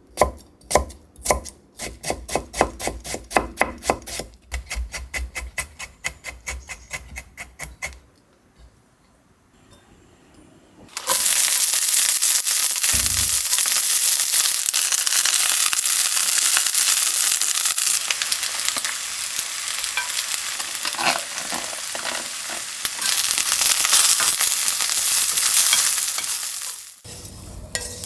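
Knife chopping rapidly on a cutting board, about four or five strokes a second, for the first eight seconds. After a short pause, food hits a hot frying pan and sizzles loudly until near the end.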